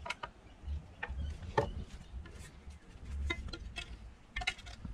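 Irregular small clicks and knocks of hydrofoil parts and a hand tool being handled during assembly, the loudest about a second and a half in, with a few soft low thumps.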